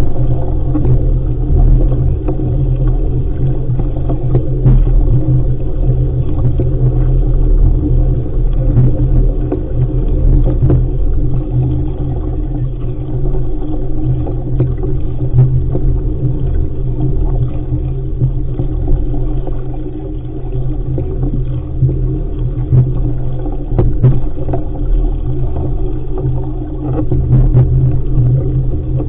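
Wind buffeting the microphone in a loud, steady low rumble while a sailing dinghy is under way, with a few faint knocks.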